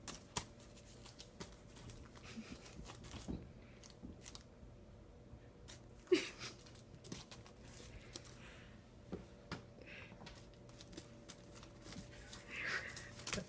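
Faint, scattered crinkling and tearing of a tampon's plastic wrapper with light knocks as cats paw and bite at it, and one sharper knock about six seconds in.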